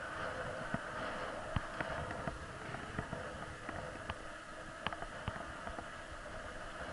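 Bicycle riding noise heard from the rider's own bike on an asphalt road: a steady rushing hiss of tyres and air, with scattered light clicks and knocks.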